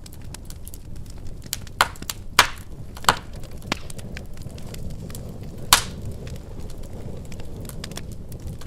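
Wood fire burning in a fireplace: a steady low rumble of flames with constant small crackles, broken by four loud, sharp pops, three of them close together around two to three seconds in and one more near six seconds.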